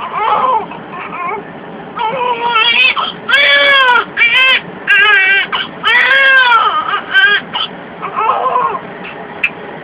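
A newborn baby crying in a run of repeated high-pitched wails, each about half a second to a second long, loudest through the middle of the stretch and weaker near the start and end.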